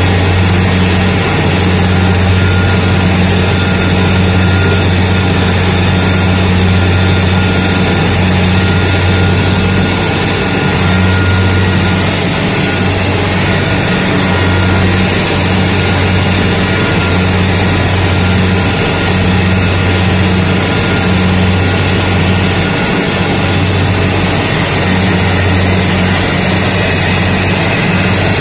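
Rice combine harvester running steadily while it cuts a field of rice: a loud, steady low engine hum under the even noise of the reel and threshing machinery, heard from the operator's seat.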